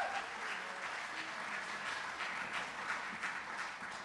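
Theatre audience applauding, many hands clapping at a steady level.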